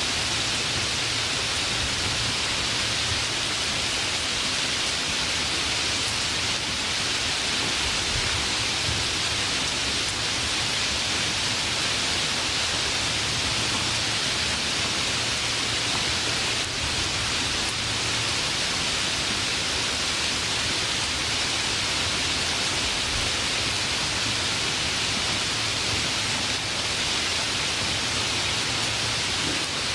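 Steady rain, an even, unbroken hiss with no thunder.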